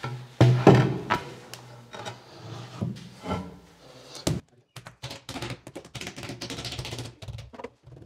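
A granite countertop slab being set down onto a basin cabinet: a thud about half a second in, then several knocks as the stone is shifted into place. In the second half comes a run of quieter light clicking as hands press and rub across the stone.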